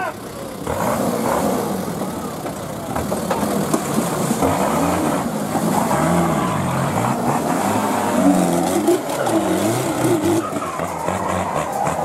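Off-road 4x4's engine revving hard under load as it climbs out of a steep mud gully, its pitch rising and falling again and again.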